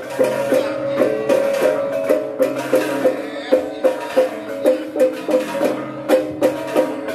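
Balinese gamelan music: pitched metal gongs and gong-chimes struck in a fast repeating pattern, with crashing cymbals.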